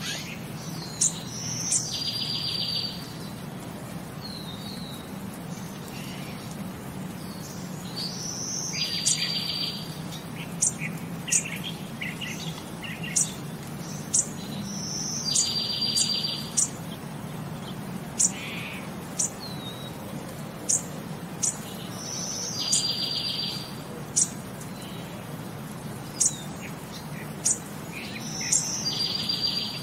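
Birdsong laid on as a looped background track: short high chirps and a rapid trill of about a second, the same phrase repeating about every seven seconds, over a steady low hum.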